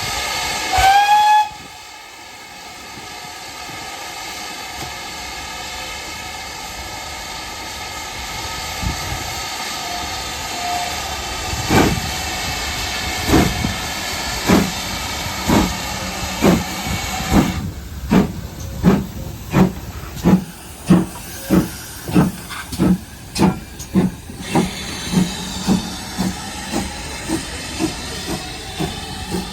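Steam locomotive sound: a short whistle about a second in, then a steady hiss of steam. From about twelve seconds in, exhaust chuffs begin slowly and quicken to about two a second as the engine pulls away, growing softer near the end.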